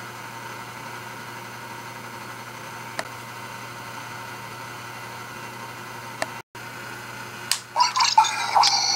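Faint steady hiss with a couple of small clicks. Near the end, a toy Omnitrix watch, switched on with its red light lit, starts playing loud electronic beeping sound effects through its small speaker.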